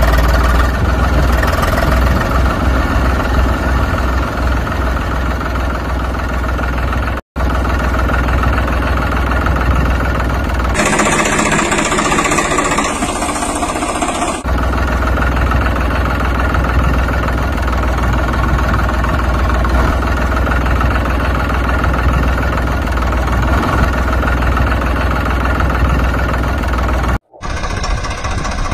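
Engine running steadily at a knocking idle, a tractor-type engine sound. It cuts out briefly about seven seconds in and again near the end, and turns hissier for a few seconds in the middle.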